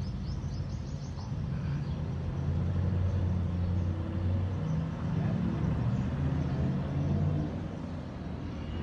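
A low engine rumble that swells through the middle and eases off near the end, with a few quick, faint high ticks in the first second.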